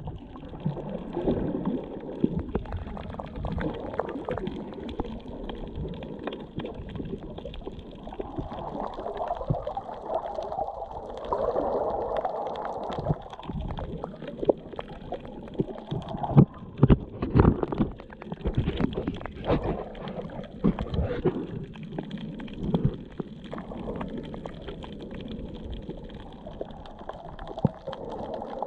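Seawater gurgling and sloshing, heard muffled through a submerged action camera's microphone, with a cluster of dull knocks and thumps about midway through.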